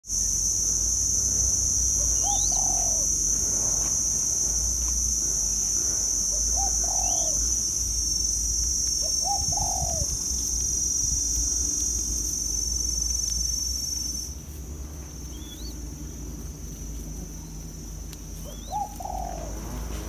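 Loud, steady, high-pitched insect drone that drops off sharply about 14 seconds in. Over it come four short dove coos, each falling away at the end, and a few faint rising chirps from another small bird.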